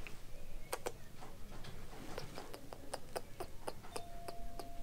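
A string of light, irregular clicks and ticks, about three or four a second, with a faint steady tone joining near the end.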